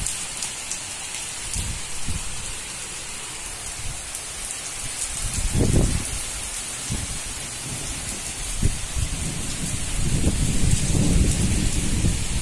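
Heavy rain pouring steadily, a continuous hiss, with low rumbles swelling up about six seconds in and again near the end.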